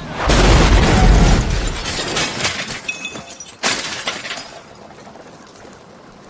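A car crashing into a parked SUV: a heavy impact with shattering and breaking, debris clattering for a few seconds, and a second sharp crash about three and a half seconds in, then dying away.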